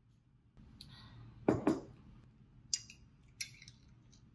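Chopsticks and tableware clinking and knocking against ceramic plates and bowls as food is served: two louder knocks about a second and a half in, then a few sharp clicks.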